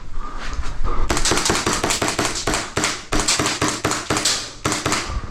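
Airsoft gunfire in rapid automatic bursts: quick strings of sharp clicks, about ten a second. The fire starts about a second in and comes in three runs, with short breaks near three and four and a half seconds.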